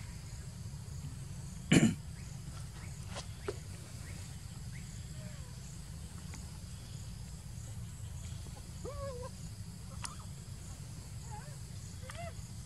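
Baby macaques giving short, high, arching squeaks, scattered and growing more frequent toward the end, over a steady low rumble. A single sharp burst about two seconds in is the loudest sound.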